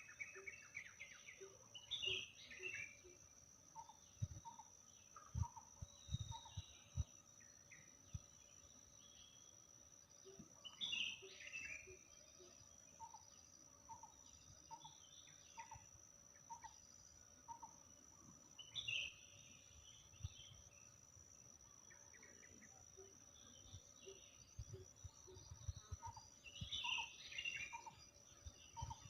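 Birds singing in a quiet countryside: short high warbling phrases come roughly every eight seconds, with runs of evenly spaced lower notes, about two a second, between them. A steady high insect drone runs underneath, and a few soft low thumps come near the middle and near the end.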